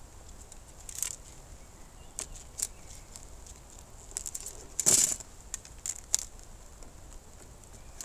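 Arrows being slid into a leather back quiver: scattered short clicks, rattles and rustles of shafts and leather, the loudest a clatter about five seconds in.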